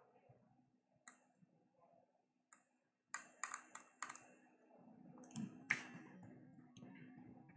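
Faint clicks from a computer keyboard and mouse: single clicks, then a quick run of about four a little after three seconds, then more scattered keystrokes.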